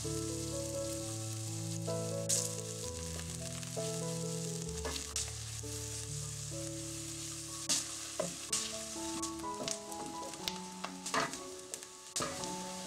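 Chopped onion sizzling as it fries in hot oil in a stainless steel pot, with a wooden spoon scraping and knocking against the pot as it is stirred. Soft background music plays underneath.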